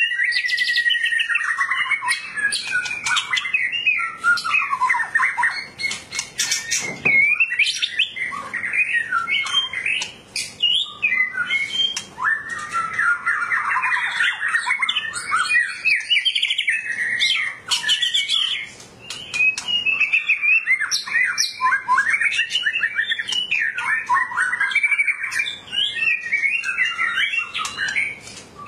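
A white-rumped shama of the Medan type singing hard and almost without a break: a loud, constantly changing run of whistled phrases, rapid trills and sharp ticking notes, with only a couple of brief pauses.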